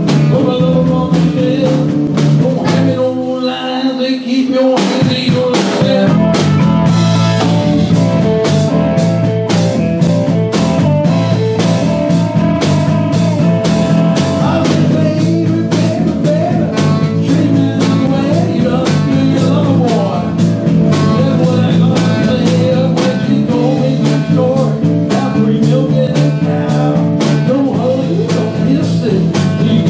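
A live rock-and-roll band playing: saxophone, electric guitars and a drum kit. About three seconds in the bass and drums drop out briefly, then the full band comes back in with a steady drum beat.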